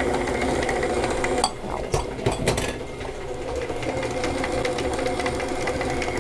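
Stand mixer's motor running steadily while its flat paddle beats stiff cookie dough in a steel bowl, with a few short knocks and clicks about two seconds in.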